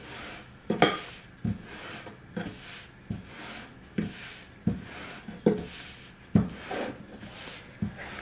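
Wooden rolling pin rolling out thin samosa dough on a floured board: a short knock about every 0.8 s as the pin is pushed and drawn back, with a soft rubbing sound between the knocks.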